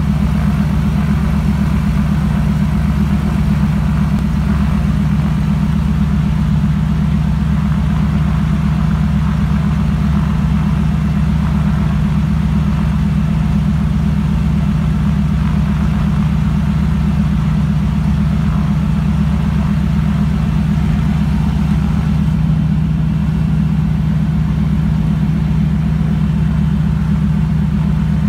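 De Havilland Beaver floatplane's engine and propeller running loud and steady, heard from inside the cockpit as the plane moves across the water.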